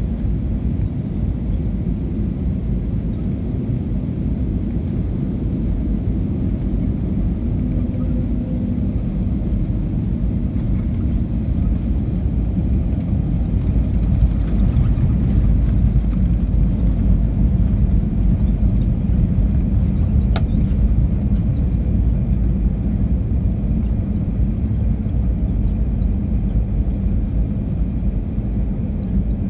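Cabin noise of an Airbus A320neo with CFM LEAP-1A engines landing and rolling out on the runway, heard from a window seat: a steady low rumble of engines, airflow and wheels. The rumble grows louder about halfway through during the landing roll, then eases; a single sharp click comes about two-thirds of the way in.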